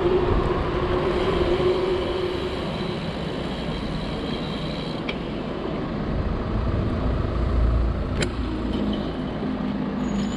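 Road traffic on a busy high street heard from a moving bicycle, with an engine-like hum in the first few seconds, under a low wind rumble on the foam-muffled microphone. A single sharp click comes about eight seconds in.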